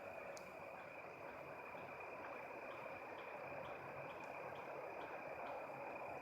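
Faint outdoor ambience: a steady hiss under a thin, steady high tone, with soft ticks repeating about twice a second and one sharp click about half a second in.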